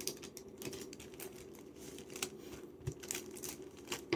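Folded coloured paper pieces rustling and crinkling in irregular short bursts as they are handled and pressed into place on a paper star, with a soft thump about three seconds in.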